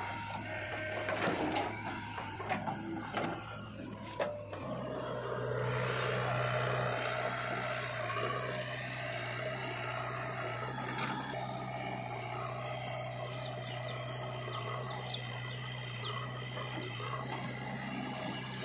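Diesel engines of a JCB 3DX backhoe loader and a tractor running steadily at a low, even hum. In the first few seconds, knocks and clatters as the backhoe tips soil into the tractor trolley.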